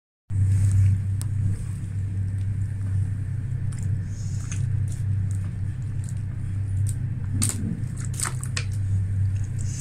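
Steady low rumble of an IC Berlin intercity train's wheels on the rails, heard from inside the passenger coach at speed, with a couple of brief clicks near the end.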